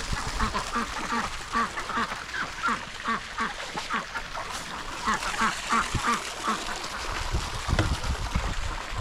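Ducks quacking in rapid runs of short calls, easing off briefly about four seconds in, with a few low thumps near the end.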